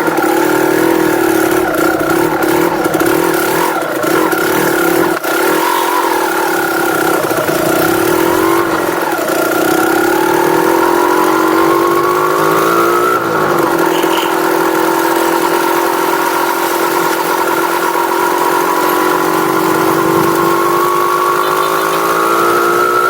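Vehicle engine running on its stock exhaust under way, its note rising and falling with the throttle: it climbs steadily for a few seconds, drops abruptly about halfway through, then climbs again near the end.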